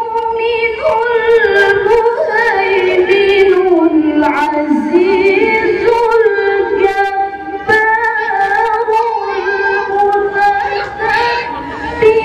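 A woman reciting the Quran in the melodic tilawah style into a microphone, holding long, ornamented notes. Her pitch sinks lower about halfway through and then climbs back up.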